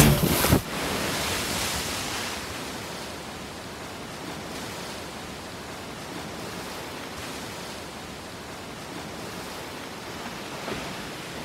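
Steady rush of wind and choppy open water, with no pitch or rhythm. Loud music cuts off about half a second in.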